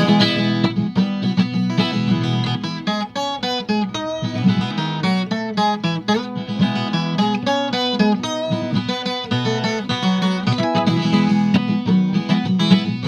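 Viola caipira playing an instrumental passage of quick, picked notes and strums over sustained low notes, a break between sung verses of a gospel song.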